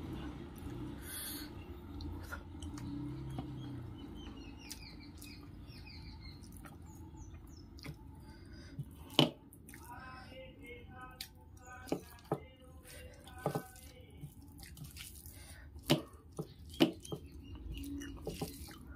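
Bare hand mixing rice and dry curry on a stainless steel plate, with soft squishing and scraping, and eating sounds. Sharp clicks come from about halfway through, several of them loud.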